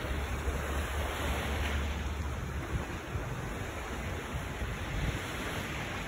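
Wind buffeting the phone microphone with a low rumble, strongest in the first half, over a steady wash of surf on a sandy beach.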